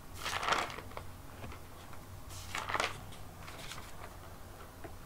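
Two short, soft rustling noises close to the microphone, one right at the start and another about two seconds later.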